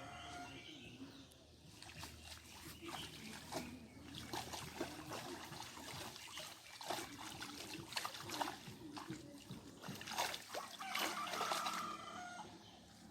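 Water splashing and trickling in irregular bursts, as in shallow water being worked by hand.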